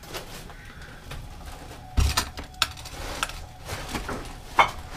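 Irregular knocks and clinks, with a dull thump about two seconds in and a sharp knock near the end.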